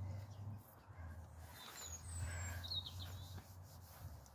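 A few short bird chirps about two seconds in, over a low steady outdoor rumble.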